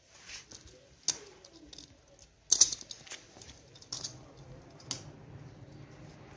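Scattered sharp clicks and light knocks, the loudest a short clatter about two and a half seconds in, as a puppy mouths a small plastic object and noses about on stony dirt.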